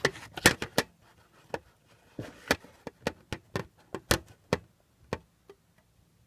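A series of sharp clicks and taps from hands handling small stiff objects, about two a second, stopping about five and a half seconds in.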